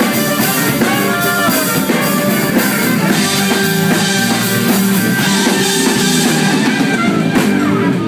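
Live rock band playing loudly: drum kit, electric guitar, bass guitar and trumpet together. The drums stop at the very end as the song finishes.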